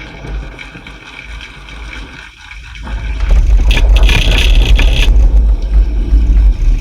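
Aura bass shaker buzzing and rattling as it is driven with deep bass; about three seconds in it turns very loud, with a harsh rattle strongest for about a second after the four-second mark. The rattle comes from something that has come loose inside the unit.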